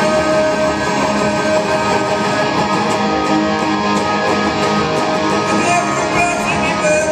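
Live rock song played on electric guitar through an amplifier, strummed in an instrumental stretch without vocals.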